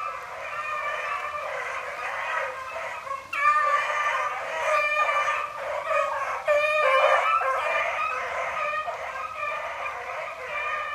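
A pack of rabbit hounds baying in full cry as they run a rabbit's track: several dogs' voices overlapping in a continuous chorus that grows louder about three seconds in.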